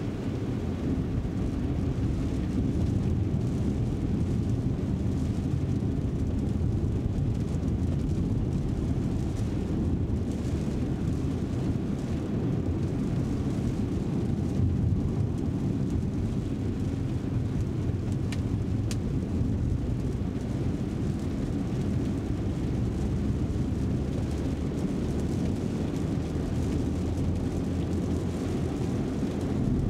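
Inside the cabin of a BMW M340i Touring, its 3.0-litre straight-six running at town speeds, a steady low drone mixed with tyre noise from the wet road.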